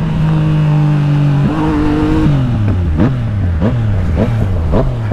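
Yamaha MT motorcycle engine held at steady high revs under acceleration, its pitch stepping up about a second and a half in; then the revs drop and the throttle is blipped in short sharp rev rises about every half second or so, with wind rush on the microphone.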